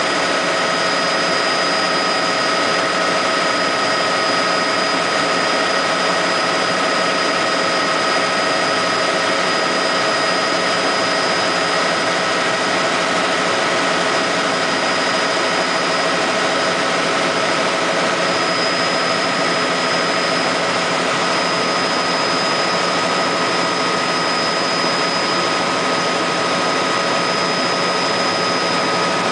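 Helicopter engine and rotor noise heard from inside the cabin in steady cruise: an even, loud drone with a steady high whine over it.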